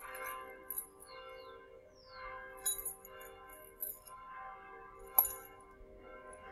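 Soft background music with sustained tones and light chiming, bell-like notes, with one sharp tick about five seconds in.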